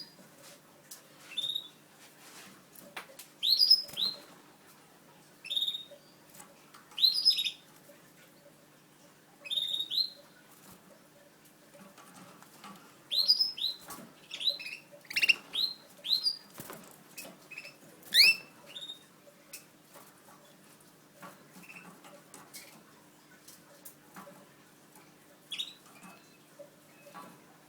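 Canaries chirping: short, high, downward-sweeping chirps in irregular clusters, busiest in the first two-thirds and thinning out near the end.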